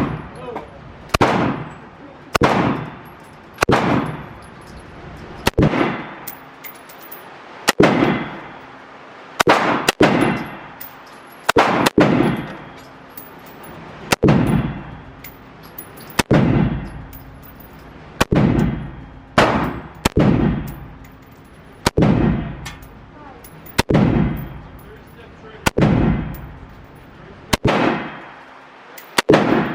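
Gunshots fired indoors at a steady slow pace, one every second or two, about twenty in all. Each shot is a sharp crack followed by a ringing echo tail.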